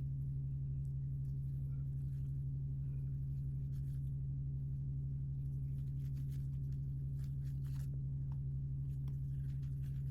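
Light crinkling and small clicks from handling plastic toy packaging during an unboxing, over a steady low electrical hum that is the loudest sound. The crinkles come more often in the second half.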